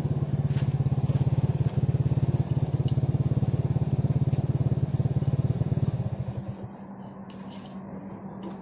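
A motorcycle engine idling with a fast, even pulse, dying away about six seconds in. Faint scraping clicks from a screwdriver digging old fibre packing out of an exhaust muffler lie over it.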